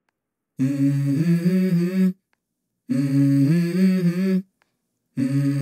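Background music: a wordless vocal melody in three phrases of about a second and a half each, with short gaps between.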